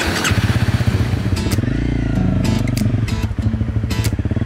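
Dual-sport motorcycle engine running as the bike pulls away along a dirt track, its low rapid pulsing evening out after about a second and a half, with a few sharp clicks.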